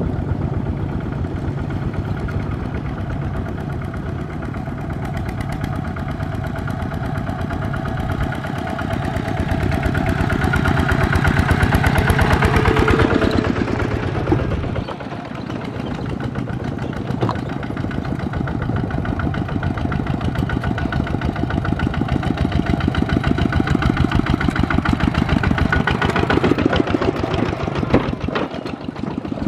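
Single-cylinder diesel engines of two-wheel walking tractors hauling loaded trailers, chugging steadily as a convoy approaches. The nearest one grows louder, passes close by about halfway through, and its sound drops off suddenly, while the following tractors keep chugging.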